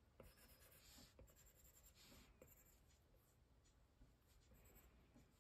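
Faint, scattered ticks and scratches of a stylus tip on an iPad's glass screen as sketch lines are drawn.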